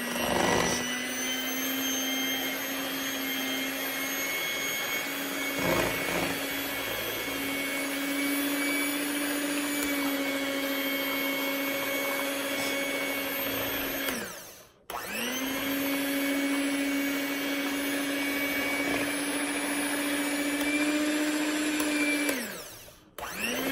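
Electric hand mixer running steadily with a motor whine, beating instant pudding mix and milk in a stainless bowl. It winds down and stops twice, about halfway through and near the end, starting straight back up each time.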